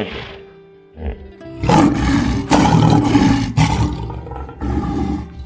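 A big cat roaring: one long roar of about two seconds, broken twice, then a shorter roar near the end, over background music.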